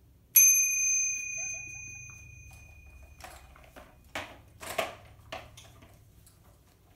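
Handlebar bell on a child's Radio Flyer scooter struck once, ringing out clear and fading over about three seconds. Then a few short knocks and rattles.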